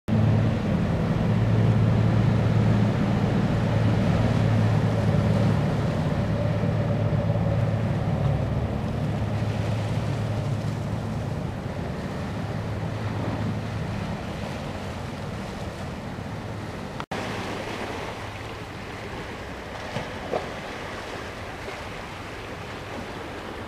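Fast ferry's engines droning steadily as it passes close, then fading as it moves away, over the wash of water and wind on the microphone. Near the end, waves wash against the stony river bank.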